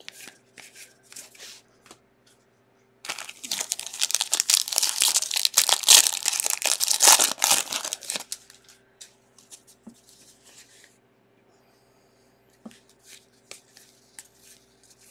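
Foil wrapper of a 2021 Bowman baseball card pack being torn open and crinkled for about five seconds, starting about three seconds in. Before and after it, light clicks of cards being handled.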